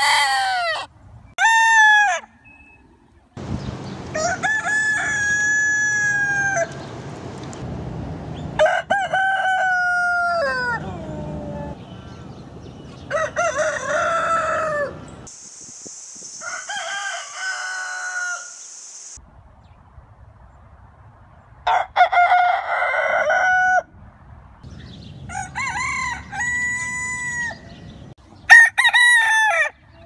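Roosters crowing one after another, about eight long crows separated by short pauses, each holding its pitch and then falling away at the end. A hiss sits behind one crow in the middle.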